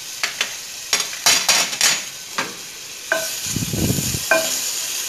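Garlic-ginger paste sizzling in hot oil in a stainless steel pot while a wooden spoon stirs and scrapes across the pot bottom in a quick series of strokes. The sizzle grows louder from about three seconds in.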